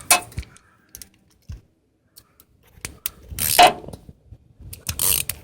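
Plastic clicks and metallic rattling as a wiring harness connector is worked off a transmission speed sensor, with two louder rattles about three and a half and five seconds in.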